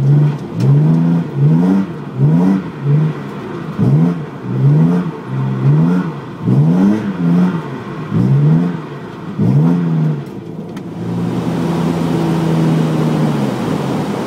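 BMW M3 engine heard from inside the caged cabin, revved in quick repeated blips, each rising and falling in pitch, about one every three-quarters of a second. About eleven seconds in it gives way to a steady engine drone.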